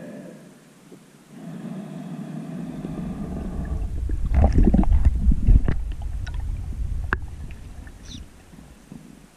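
Underwater water noise and bubbling as a spearfishing diver moves through the water, recorded on a camera mounted on the speargun. A low rumble swells to its loudest in the middle and then fades, with a single sharp click about seven seconds in.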